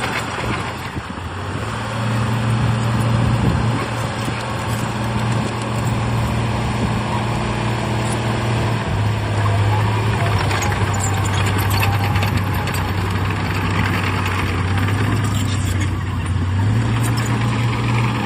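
Diesel engine of heavy earthmoving machinery running under load. Its note steps down slightly about nine seconds in and rises again near the end.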